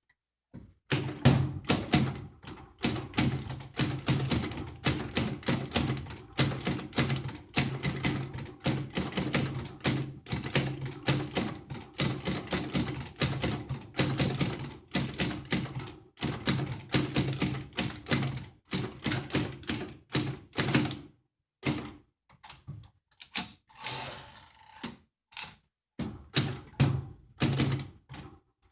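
1946 Remington Noiseless Model Seven typewriter being typed on in quick, steady runs of keystrokes, the keys working as they should. The typing pauses briefly, a longer noisier sound follows about three-quarters of the way through, and then the typing resumes.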